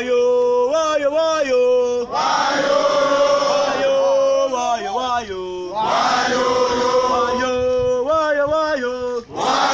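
Men's voices singing a chant together, in sung phrases of a few seconds with short breaks between them.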